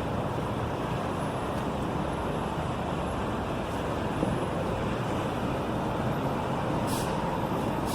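Steady vehicle noise: an even, unchanging wash of road or traffic sound with no distinct events.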